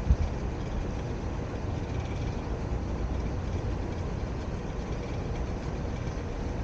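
Steady low rumble of vehicle noise, with a brief low thump just after the start.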